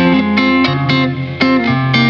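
Background music: a guitar picking notes several times a second over a steady bass line.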